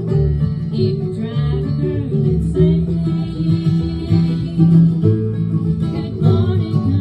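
Bluegrass band playing live, with acoustic guitar and upright bass among the string instruments.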